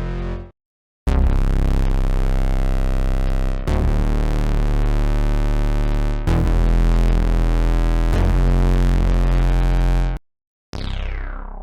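Camel Audio Alchemy software synthesizer playing Analogica bass presets: three long, held, very deep bass notes, one after another. After a short gap near the end, a new bass sound starts with a downward filter sweep.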